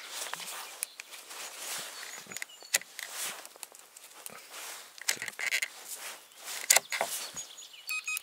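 Faint scattered clicks and rustles. A short electronic beeping starts just before the end.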